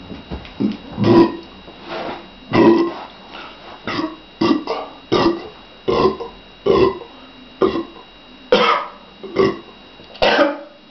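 A woman burping over and over, a quick irregular string of about fifteen short burps, some longer and louder than others, bringing up the gas from a litre of fizzy water.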